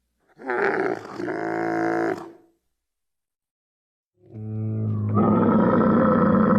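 Two Plateosaurus creature calls made for a sound-effects set. The first is a pitched call of about two seconds that wavers at the start, then holds steady. After a short silence, a longer, louder call swells up from about four seconds in and holds a steady pitch.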